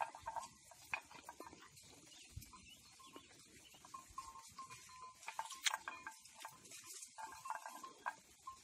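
Mithun (gayal) herd in dry hillside scrub: scattered rustles and snaps of brush as the animals move and graze, with faint animal sounds and some short held tones in between.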